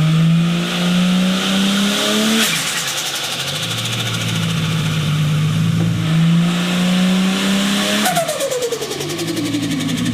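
Turbocharged car engine accelerating hard, with its pitch climbing. Twice, at about 2.5 s and 8 s, the throttle snaps shut and the turbo flutters in a rapid 'stututu' of compressor surge. After the second flutter comes a falling whistle as the turbo spools down.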